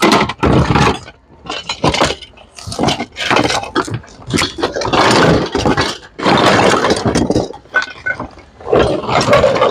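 Hands rummaging through a bin of mixed household goods: glass pot lids, metal utensils and hard plastic items clinking, scraping and clattering in repeated bursts.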